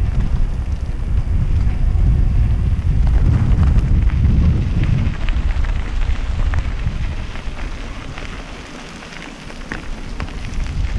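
Wind buffeting a bicycle-mounted action camera's microphone while riding, a heavy rumble that drops away near the end. From a few seconds in, bicycle tyres crackle and crunch over loose gravel.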